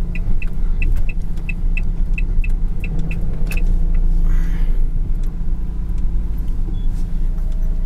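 Steady engine and road rumble inside a van's cab, with the turn-signal indicator ticking about three times a second until it stops about three and a half seconds in.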